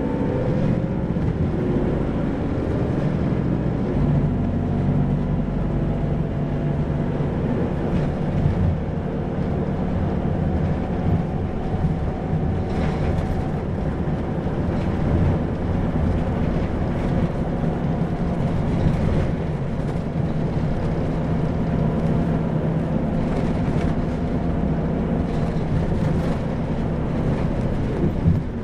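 Isuzu 2PG-LV290N3 (Erga) city bus driving: its diesel engine runs with a mostly steady note over road noise.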